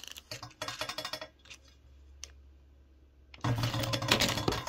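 Handling noise while a measurement is set up: scattered clicks and rattles as the camera is set down and things are moved, a quiet stretch, then a louder run of rattling clicks near the end.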